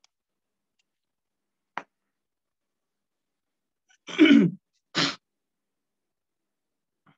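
A person sneezing: a short voiced burst falling in pitch about four seconds in, then a sharper, hissier burst a moment later. A single faint click comes shortly before.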